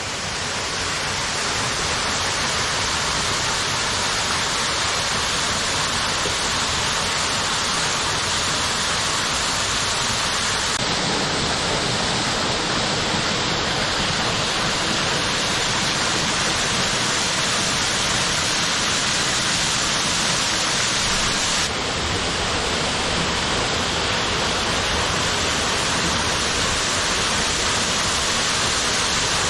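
Waterfall pouring steadily over rock: a constant rush of falling water, its tone shifting abruptly twice, about a third and two thirds of the way through.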